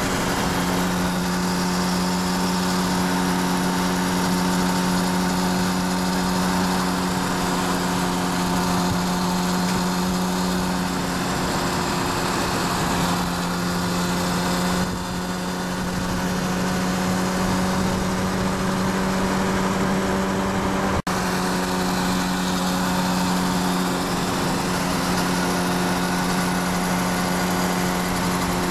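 Kawasaki Ninja ZX-6R's inline-four engine running at a steady cruise on the freeway, a constant engine note over road and wind noise, its pitch shifting slightly about halfway through. The sound breaks off for an instant about two-thirds of the way in.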